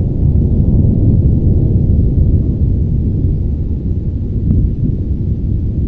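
Volcanic eruption: a deep, continuous rumble with no breaks.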